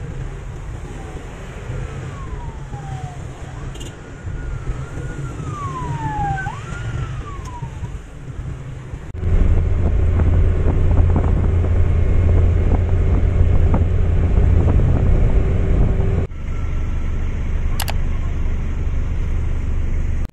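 Ride noise from a passenger jeepney: its engine running with road and wind noise, a steady low rumble. A few wavering high-pitched glides sound in the first half, and about nine seconds in the rumble jumps much louder with a steady hum, easing slightly near the end.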